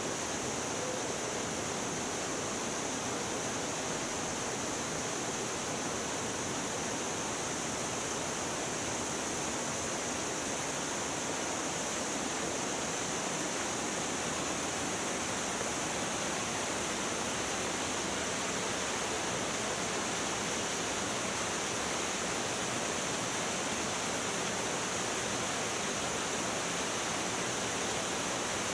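Small canyon waterfall pouring into a rock pool: a steady, unbroken rush of falling water.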